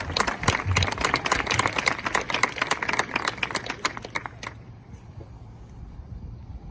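Audience clapping, a dense patter of hand claps that dies away about four and a half seconds in.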